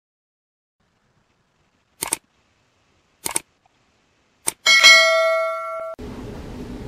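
Subscribe-animation sound effect: three mouse clicks about a second apart, then a bright bell-like notification ding that rings for about a second. After it, a faint steady low hum.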